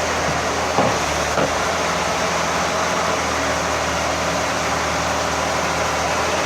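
Excavator's diesel engine running steadily, with two brief knocks about a second in.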